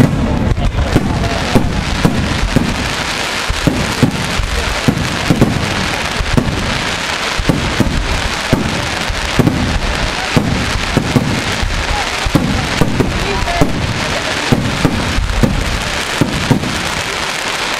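Aerial firework shells bursting overhead: a rapid, continuous run of bangs, one or two a second, over a steady crackle from the glittering white stars.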